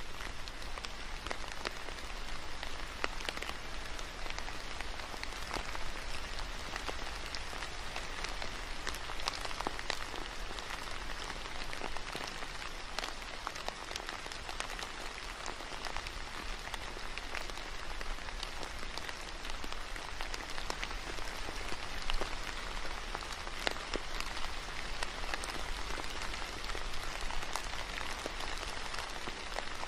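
Steady rain falling, with many scattered single drops ticking on surfaces near the microphone.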